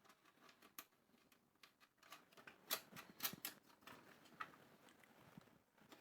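Faint, scattered clicks and taps of small parts being handled on an amplifier's front panel, with a cluster of louder clicks about three seconds in.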